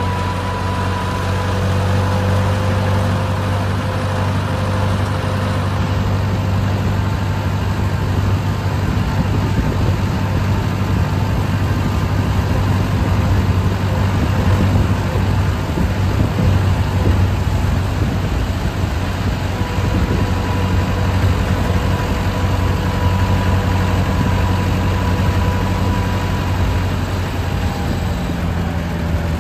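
A tractor's diesel engine running steadily while the tractor drives along with a mini combine harvester attachment. The engine is heard up close from the driver's seat, beside its vertical exhaust stack, as an even, deep hum.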